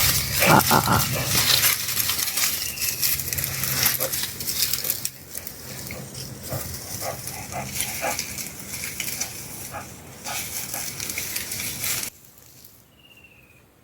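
A dog growling low, over scattered crackling and rustling.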